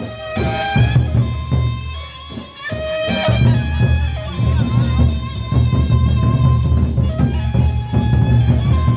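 Music: a melody of held pitched notes that step from pitch to pitch over a steady low drone, with faint regular ticks high up and a brief dip in loudness a couple of seconds in.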